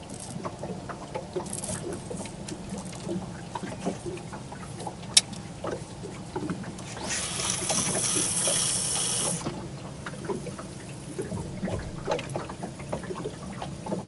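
Water lapping and small ticking knocks against an aluminum boat hull, with one sharp click about five seconds in. About seven seconds in a fishing reel pays out line for about two seconds in a steady hissing whir as the baited rod is cast out.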